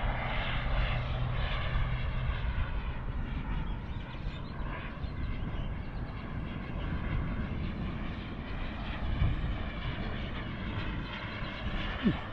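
Remote-control model L-39 Albatross jet's turbine heard in flight: a steady rushing whine that swells and fades as the jet moves across the sky, with low wind rumble on the microphone.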